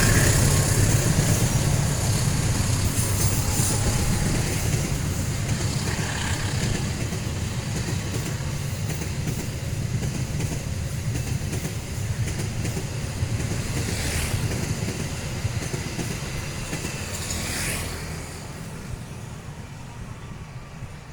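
A long passenger train rolling past, its wheels clattering over the rails with a deep rumble that fades steadily as the train moves away. Two brief high-pitched squeals come in the second half.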